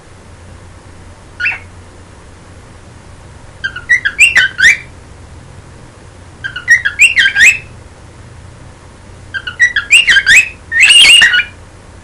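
Cockatiel singing: one short chirp, then three bursts of quick warbling whistles a few seconds apart, ending in a longer call that is the loudest of all.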